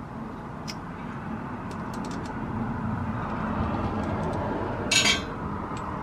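A low vehicle rumble that swells over a few seconds, with light clicks of a bearing and socket being handled on a shop press and one short, sharp clatter about five seconds in.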